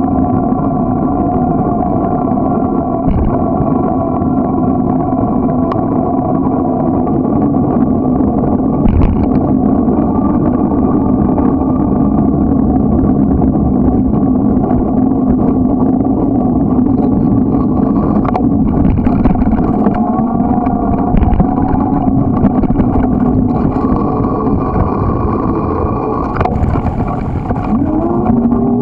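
Steady, loud riding noise from a moving bicycle: a rumble of tyres and wind with a steady droning hum. The hum rises in pitch near the end, and there are a few light clicks.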